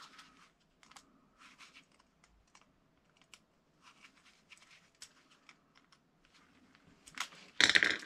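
Scattered small clicks and light rustles of gloved hands pushing cable terminals onto a small push-button switch and handling the wires, with a louder rustle near the end.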